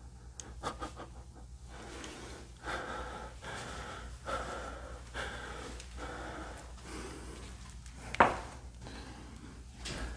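A person breathing heavily and fast near the microphone, the breaths coming in a steady rhythm, with a single sharp knock about eight seconds in.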